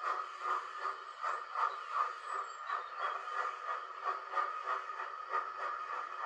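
Recorded steam locomotive chuffing in a steady, even rhythm of about three beats a second, played back through the small speaker of a Gaugemaster Scenic Sounds Module (Steam).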